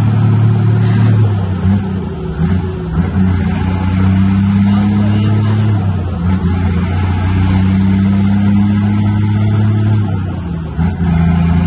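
Diesel engine of a Scania 124 truck running under way, heard inside the cab: a steady low hum that drops away and picks up again about two seconds in, around six seconds and near the end.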